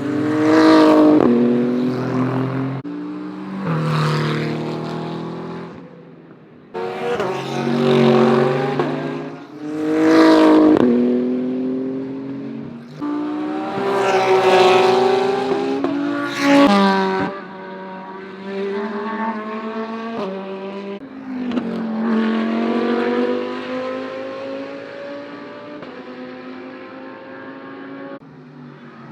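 GT3 race car engines passing the trackside at speed, about six in quick succession, each dropping in pitch as it goes by. In the second half a single car is heard longer and quieter, its engine note slowly rising as it accelerates, and it fades near the end.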